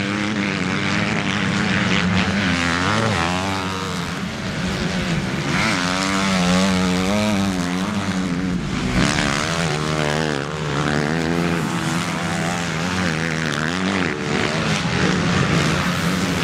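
Motocross bike engines revving hard around a dirt track, their pitch rising and falling again and again as the riders open and shut the throttle through the corners, with more than one engine heard at once.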